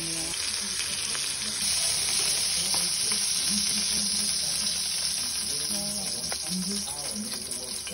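Chicken pieces sizzling steadily in hot oil in a steel wok as they brown, with a few light clicks of metal tongs turning and lifting the pieces.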